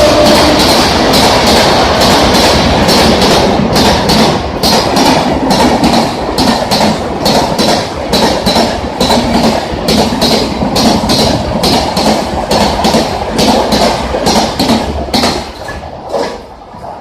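Shatabdi Express passenger coaches rushing past at high speed, their wheels clattering over the rail joints in a rapid clickety-clack over a steady rush of noise. The clatter dies away sharply near the end as the last coaches go by.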